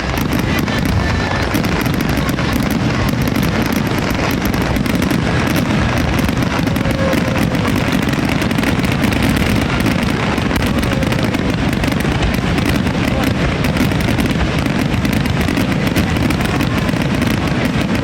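Fireworks display going off in a dense, unbroken barrage of bursts and crackling, with crowd voices underneath.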